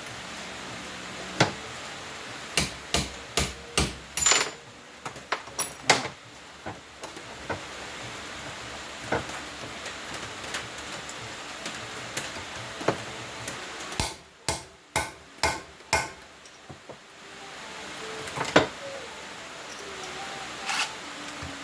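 A hammer striking an easy out (screw extractor) to drive it into a rusted-in spark plug: sharp metal-on-metal blows in uneven bunches with pauses between them.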